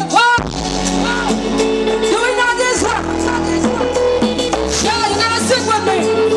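Live band music with singing on a microphone, backed by electric bass guitar, keyboards and a steady drum beat.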